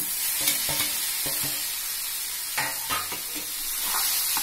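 Spice paste sizzling in oil in a kadai as boiled jackfruit and potato pieces go in. A metal spatula scrapes and knocks against the pan while stirring.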